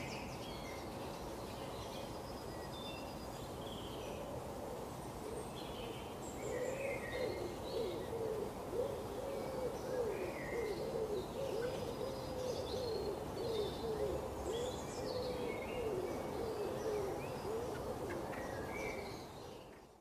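Garden birds calling: scattered high chirps of small birds, joined from about six seconds in by a low cooing call repeated roughly twice a second.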